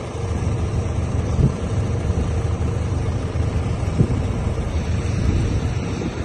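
An engine running steadily with a low rumble, mixed with wind buffeting the microphone, and two short knocks, one about a second and a half in and one about four seconds in.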